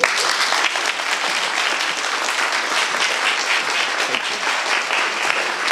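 Audience applauding: many hands clapping, breaking out suddenly at the end of a talk and keeping up at an even level.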